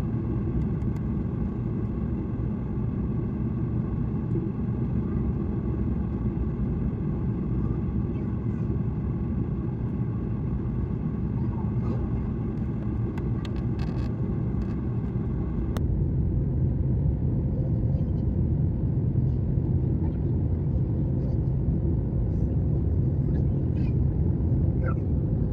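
Jet airliner taking off: a steady low rumble with a faint hum of steady tones above it. About sixteen seconds in the higher hiss falls away and the rumble grows slightly louder.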